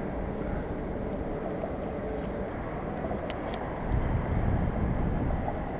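Wind buffeting the microphone over a steady low outdoor rumble, with a stronger gust about four seconds in.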